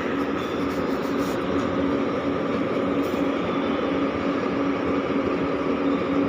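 Wanderer thread milling machine running, a steady mechanical hum with a few faint ticks in the first few seconds.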